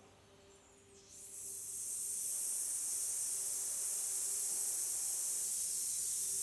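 A person slowly breathing out a long, steady 'sss' hiss through the teeth: the healing sound 'S' voiced on the exhale of a Qigong breathing movement for the lungs. It starts about a second in and is held.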